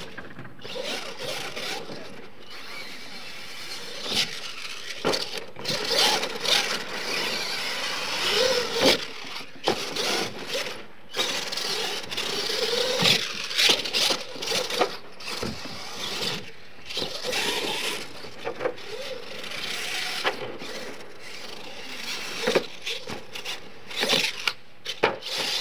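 Radio-controlled scale monster truck running on a dirt track: its motor revs up and down, the tyres spin and scrape in loose dirt, and the chassis knocks and thuds repeatedly as it hits ramps and lands.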